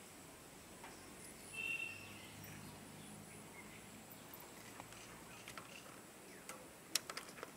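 Quiet rural outdoor ambience with a faint steady high insect hum. A short high squeak comes about one and a half seconds in, and a few sharp clicks come near the end.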